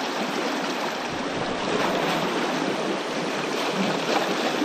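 Shallow river rushing over a stony riffle: a steady babble of fast water.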